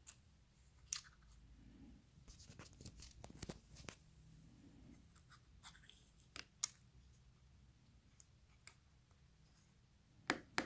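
Small scattered clicks and taps of the iPhone 6 and its new display being handled and fitted, ending in a sharper pair of clicks near the end as the display's connector presses home; that click is the sign the display has seated properly.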